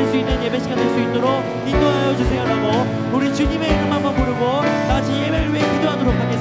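Live worship band playing a praise song: a lead singer and backing vocalists singing over drum kit, bass, guitar and piano, with a steady kick-drum beat.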